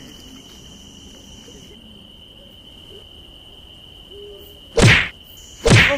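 Night insects trilling in one steady high note, fading out for a few seconds midway and coming back near the end. Two loud, sudden hits about a second apart near the end.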